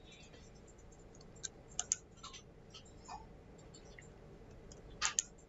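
Computer mouse clicking: a few sharp separate clicks, with a quick pair a little under two seconds in and another quick pair near the end.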